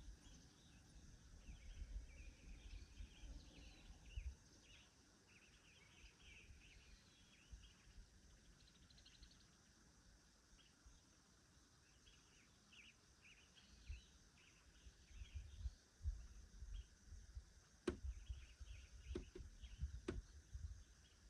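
Faint woodland songbirds chirping and singing throughout, over a steady high insect-like hiss. Low rumbles come and go, and three sharp clicks or snaps sound in the last few seconds.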